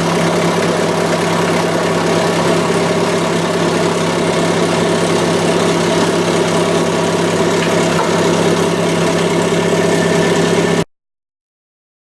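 Torrington 433 rotary swager running steadily: a loud, even machine hum with a constant low tone under a dense noise, cutting off suddenly near the end.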